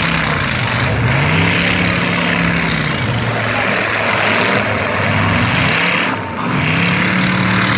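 Several demolition derby cars' engines running and revving at once, their pitch rising and falling over a loud, noisy din.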